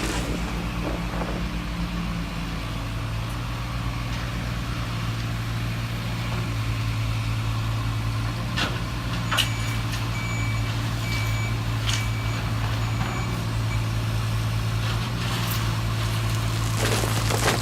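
Simulated truck diesel engine from an RC truck's sound module, running steadily. About halfway through, a reversing beeper sounds for about four seconds. A few sharp clicks are heard alongside.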